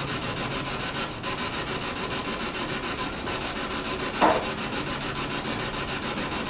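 Steady hiss of static, with one short higher-pitched sound about four seconds in.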